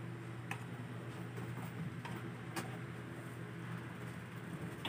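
A few faint clicks from the plastic parts of a ring light being handled and fitted together, over a steady low hum.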